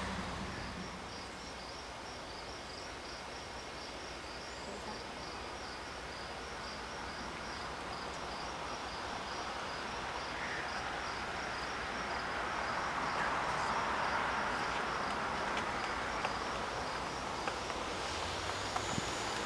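An insect chirping in an even, high-pitched pulse, a few times a second, faint over a steady outdoor hiss that grows louder in the second half.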